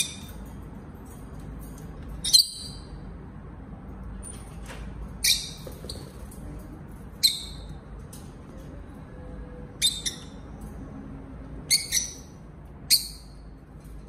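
Rosy-faced lovebirds squabbling, giving about seven short, sharp high-pitched chirps spaced a second or two apart.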